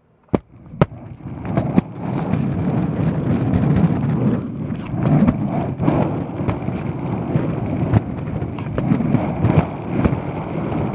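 Polyurethane skateboard wheels on a torsion-beam roller-skate truck rolling over concrete, heard close up from under the deck: a steady rumble that builds up from quiet within the first second or two, with many sharp clicks and knocks along the way.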